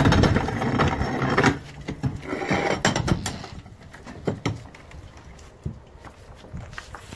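A wooden shed door swung open, its bottom scraping and rattling for about the first second and a half, then another brief scrape, then scattered light clicks and steps that fade out.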